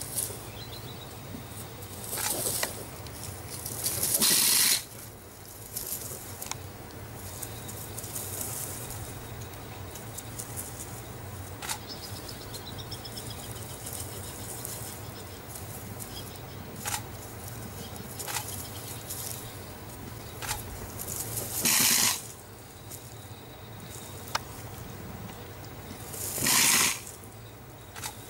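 A leopard and a porcupine fighting in grass: a few short, loud hissing rattles, each about half a second to a second long, over a steady low hum, with a few sharp ticks and faint high chirps between them.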